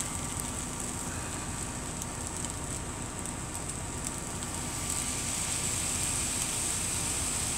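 Rice frying in a nonstick pan on an electric hot plate: a steady sizzle that grows louder about five seconds in, as soy sauce is poured onto the hot rice. A steady low rumble sits underneath.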